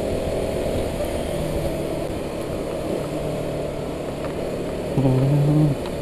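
Motorcycle running on a city road, heard from the rider's seat: a steady rush of engine and road noise. A short held tone about five seconds in.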